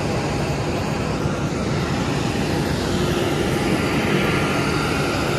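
Steady, loud jet-airliner noise on an airport apron, cutting in suddenly: the engines or auxiliary power unit of parked aircraft running.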